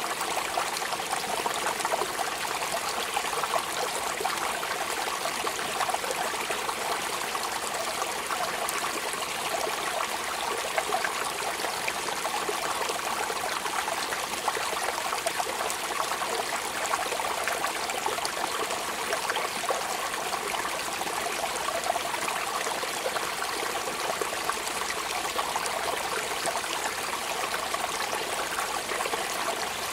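Steady rain falling, a constant hiss full of small drop ticks that does not change.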